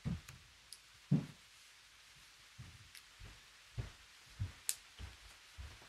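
Faint, scattered clicks of metal knitting needles and soft low thumps of hands and yarn, as stitches are cast off one by one.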